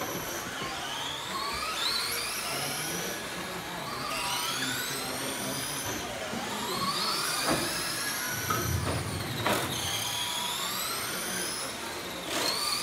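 Several electric radio-controlled race trucks running together, their motors whining in overlapping sweeps that rise in pitch each time a car accelerates. There are two sharp knocks in the second half.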